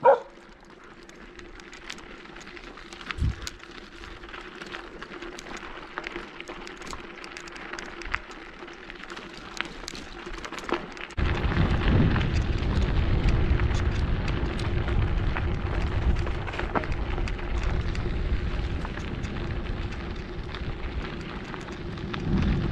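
Bicycle tyres rolling over a gravel road, with fine crackling from the stones. About halfway through, a loud low wind rumble on the microphone sets in suddenly and stays.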